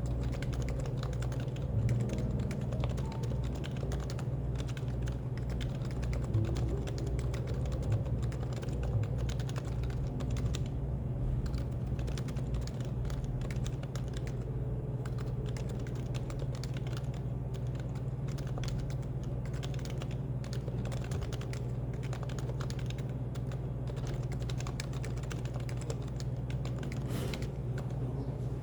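Continuous typing on a Happy Hacking Keyboard (HHKB): a steady stream of quick keystroke clicks and thocks over a steady low background hum.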